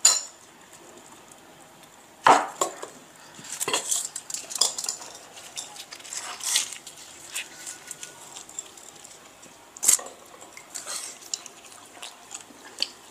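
Eating by hand: puris torn apart, chewing, and the odd tap against steel plates and bowls, heard as irregular short clicks and crackles, the loudest about two seconds in and again near ten seconds.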